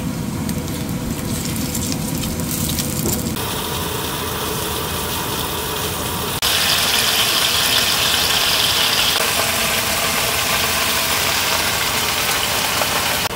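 Steady hissing noise of food cooking on a stove, changing abruptly about three and six seconds in.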